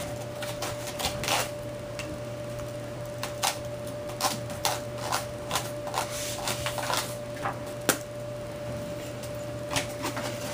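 Small hard objects clicking and clattering together in a basket as a child scoops, shakes and tips them, in irregular bursts of sharp clacks.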